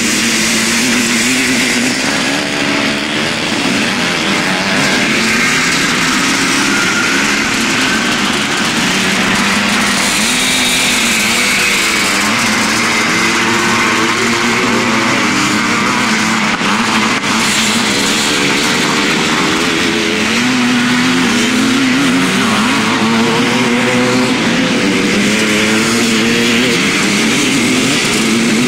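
Motocross motorcycles racing: engines revving up and down over and over as the riders accelerate, shift and back off, loud and continuous.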